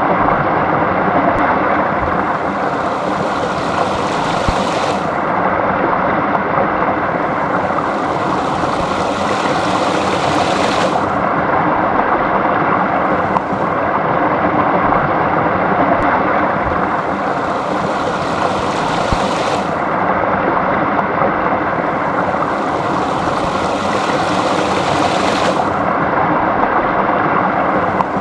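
Small stream flowing steadily, a continuous loud rush of running water.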